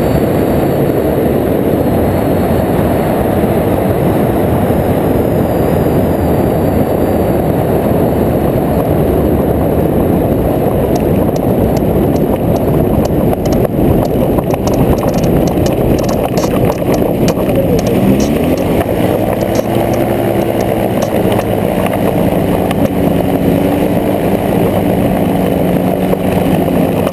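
A weight-shift microlight trike's engine and propeller running, with heavy wind rush on the microphone. About two-thirds of the way in, the engine's pitch falls and settles into a steady lower hum, as when the throttle is pulled back.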